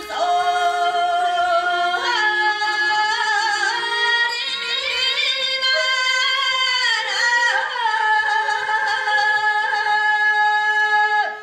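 A voice singing long, held notes with sliding pitch and ornaments. The singing breaks off sharply near the end.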